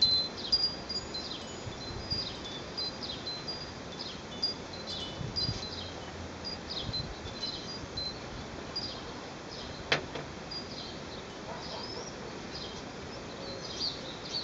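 Small birds chirping in short, high notes throughout, over soft cloth-on-glass wiping. A single sharp knock about ten seconds in as an aerosol can of glass cleaner is set down on the glass tabletop.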